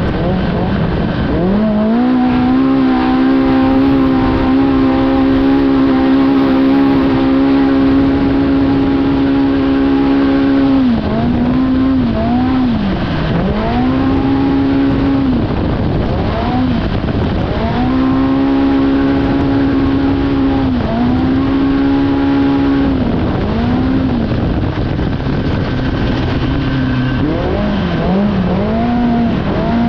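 Polaris Pro R's four-cylinder engine at race pace, heard onboard. It climbs and then holds one steady pitch for long stretches under throttle, the CVT keeping the revs constant. Several times it drops off as the driver lifts and blips back up before settling again.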